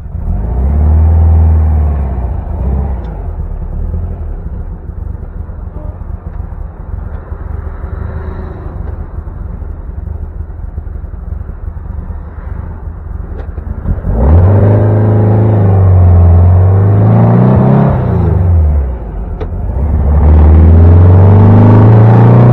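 Air-cooled flat-four engine of a custom 1960 VW Beetle, a fuel-injected 1.6 with performance exhaust, heard from inside the cabin as the car drives off. There is a brief rev, then a quieter stretch of low running. About two-thirds of the way through it accelerates hard, the pitch climbing, dropping once and climbing again.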